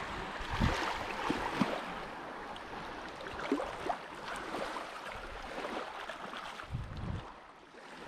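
Shallow seawater lapping and splashing at the shoreline, with a few short splashes and low wind rumbles on the microphone; it fades out near the end.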